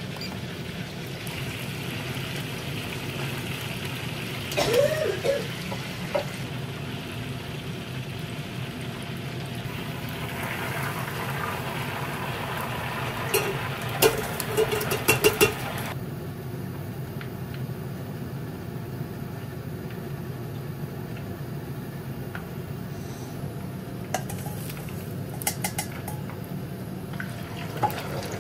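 Chicken wings deep-frying in a pot of hot oil, a steady bubbling sizzle. Brief knocks come about five seconds in, and a run of sharp metal clinks around the middle as a mesh strainer basket is knocked against the pot.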